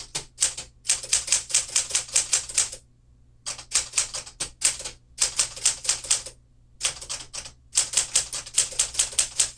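A 1952 Smith-Corona Clipper manual typewriter being typed on: quick runs of sharp key strikes, several a second. The strikes break off in short pauses about three seconds in and again after six seconds.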